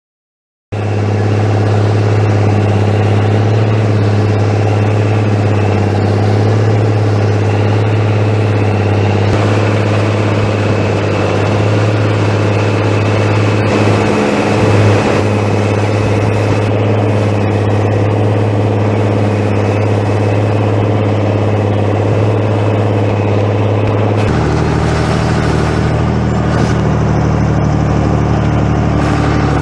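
Same tractor's diesel engine running steadily, starting abruptly just under a second in. About 24 seconds in its note changes to a lower, rougher pitch, and near the end the engine speed rises.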